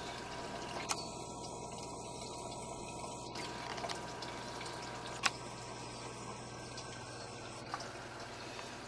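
Water running in a reef aquarium's circulation over a steady low hum, with three sharp clicks, the loudest about five seconds in.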